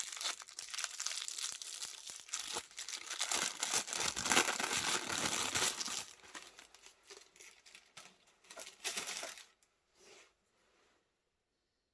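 Packaging being handled and opened: dense crinkling and tearing, loudest in the middle, then thinning to a few rustles and a short burst before it stops near the end.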